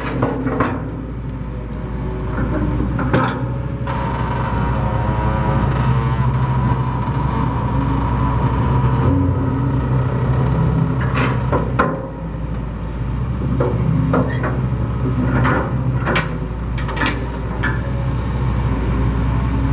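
A 1995 Hitachi EX300LC-3 hydraulic excavator's diesel engine running steadily, with a higher steady tone over it for several seconds and a handful of sharp clanks, most of them in the second half.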